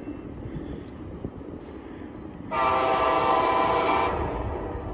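Air horn of an approaching train, out of sight, sounding one long chord blast of about a second and a half that starts about halfway in and cuts off, over faint low background rumble.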